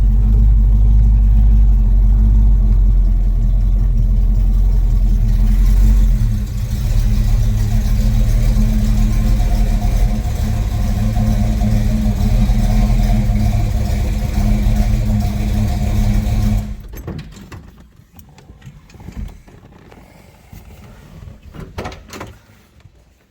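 Freshly rebuilt Pontiac 400 V8 of a 1970 GTO running loudly and steadily, then cutting off suddenly about three-quarters of the way through, followed by a few light knocks and clicks.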